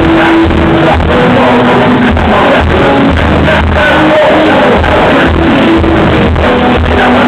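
Live hip-hop performance heard from the crowd at a club show: a loud, pulsing bass-heavy beat through the PA with MCs' voices over it.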